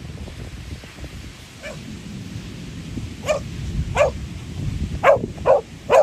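A dog barking off and on: one faint bark, then five louder barks in the last three seconds, coming closer together toward the end. Under them runs a low rush of wind and surf.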